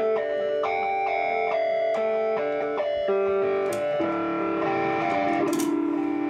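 Electric instrument played through effects, in the guitar range: held, overlapping notes that step to new pitches every half second or so. Two short hissy bursts come near the end.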